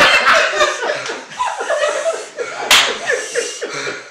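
Several people laughing, with one sharp slap about two and a half seconds in.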